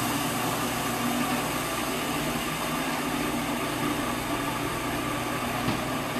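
Food processor motor running steadily, its blade grinding raw sunflower seeds with sugar and salt at the start of making sunflower-seed butter.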